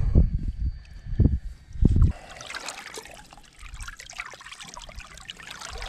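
Water sloshing and trickling around a hand holding a large snook in the water beside a boat as the fish is revived for release. A few loud low thumps in the first two seconds, then a steady fine splashing and trickling.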